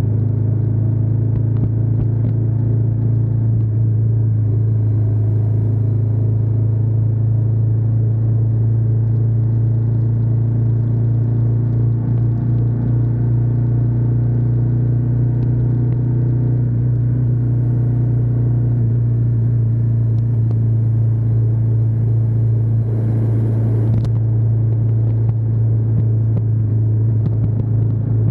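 Ducati Diavel 1260S's 1262 cc L-twin engine running steadily under way, heard close up from the rear of the bike. A brief hiss comes about three-quarters of the way through.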